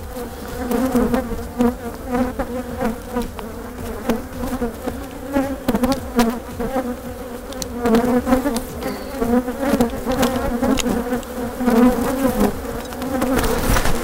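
Agitated honeybees buzzing close to the microphone: a dense, wavering drone that swells and fades as bees fly past, over scattered light clicks and knocks from the hive being worked. The colony is upset at being disturbed.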